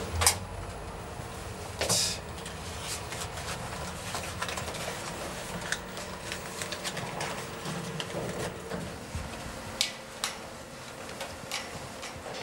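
Lift car ambience: a steady hum with scattered light clicks and small rustles, and a short hissing rustle about two seconds in.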